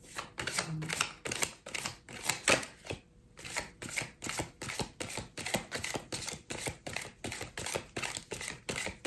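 Tarot cards being shuffled in the hands: a steady run of soft card slaps, about three a second, with a short pause about three seconds in.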